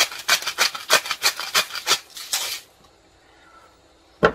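Handheld sea salt grinder being twisted over a dish, a quick run of gritty rasping crunches about three a second as the salt crystals are ground, stopping after about two and a half seconds. A single sharp knock follows near the end.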